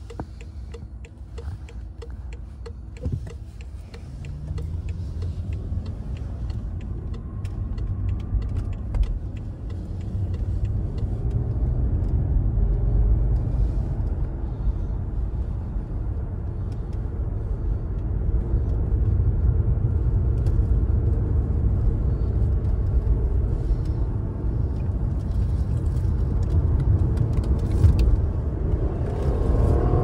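A BMW 760's V12 engine and road noise as the car accelerates onto the motorway, a low rumble growing steadily louder from about four seconds in. A regular ticking is heard in the first few seconds. The car has a slight ignition fault (misfire), which the driver says has not cost power or set off a warning.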